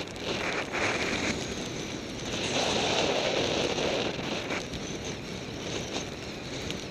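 Snowboard sliding through powder snow, a continuous hiss of snow with wind rushing over the camera microphone, swelling loudest a little before halfway through.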